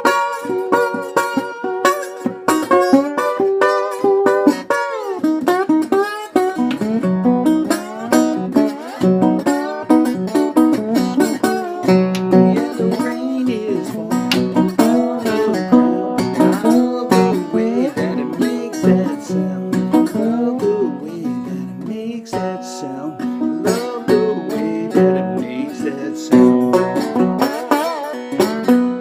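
Music on a plucked string instrument: a quick, busy run of picked notes and chords that goes on without a break.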